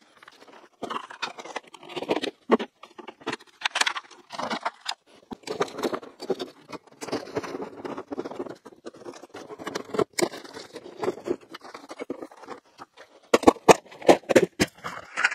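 Hand dismantling of a pickup truck's front end: plastic trim and metal parts being pried, pulled and handled, making irregular scraping, rattling and clicking, with a run of sharper clicks near the end.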